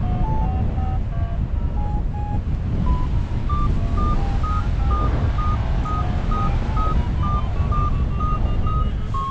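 Paragliding variometer beeping in short, rapid tones, the pitch stepping up about three seconds in and staying high, which signals the glider climbing in lift. Heavy wind rumble on the microphone underneath.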